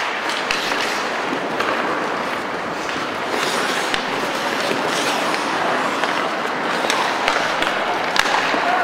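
Ice hockey play: skate blades scraping the ice and short sharp clacks of sticks and puck, over a steady noise of the rink.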